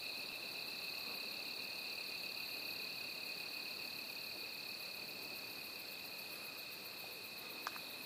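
Night insects, crickets, trilling steadily at two high pitches, with a faint fast pulsing above them. A single small tick comes near the end.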